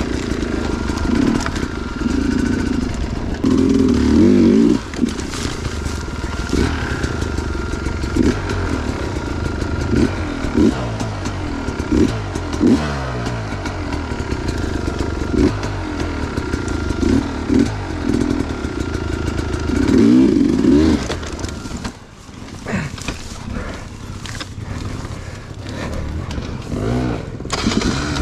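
Two-stroke enduro dirt bike being ridden, its engine revving up and down over and over, with hard bursts of throttle. The engine eases off sharply about three-quarters of the way through, then picks up again.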